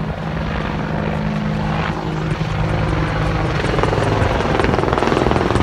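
AH-64 Apache attack helicopter flying overhead: steady engine and rotor noise with a fast, even rotor beat, growing louder as the helicopter comes closer.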